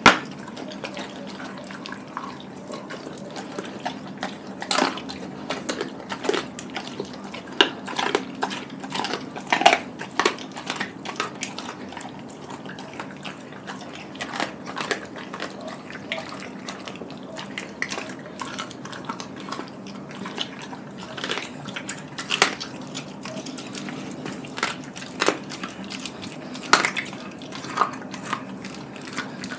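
Doberman chewing and crunching through a whole raw chicken, bones and all, in irregular bites, over a steady low hum.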